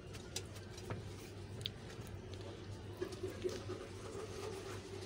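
Faint soft handling sounds of hands folding and gathering greased, flour-dusted paratha dough on a wooden board: a few light taps and rubs over a low steady hum.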